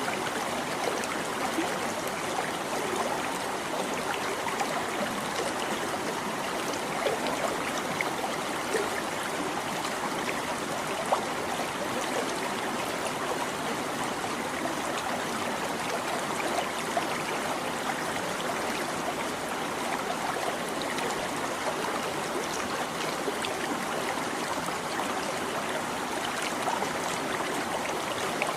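Shallow stream babbling and trickling over rocks, a steady flow with small splashes and plinks scattered through it.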